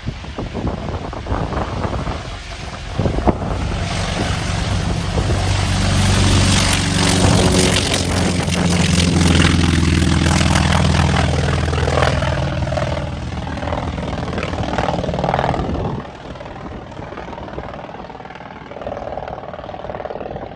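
North American T-28B Trojan's Wright R-1820 nine-cylinder radial engine at full power on takeoff. It swells as the aircraft passes close by and then fades as it climbs away, with wind buffeting the microphone at the start.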